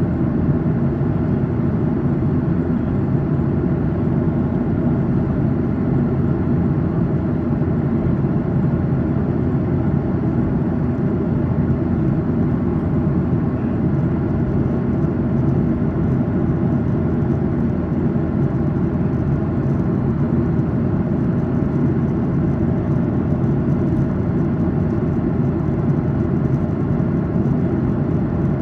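Steady cabin noise of a Boeing 737-800 in cruise, heard inside the cabin: the even roar of its CFM56-7B engines and the airflow over the fuselage, deepest in the low range, with a faint whir.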